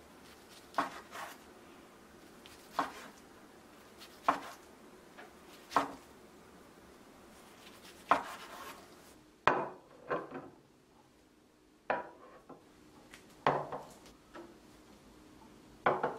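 Knife slicing through a rolled egg-omelette gimbap and knocking onto a wooden cutting board: about ten separate cuts, one every second or two, some with a quick second tap.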